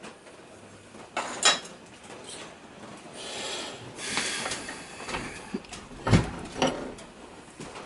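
Clanks and scraping from a hand-operated sheet-metal folding machine and the thin stainless steel panel being folded in it, with a sharp clank about a second and a half in and a heavy knock about six seconds in.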